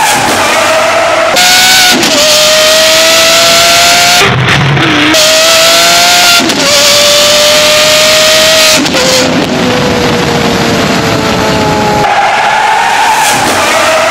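Lamborghini Aventador SVJ Roadster's V12 with a custom straight-piped exhaust at full throttle, its high-pitched note climbing through the gears with a sharp break at each upshift, several shifts in a row. Later the pitch falls steadily as the car eases off, then it climbs again near the end, all inside a road tunnel.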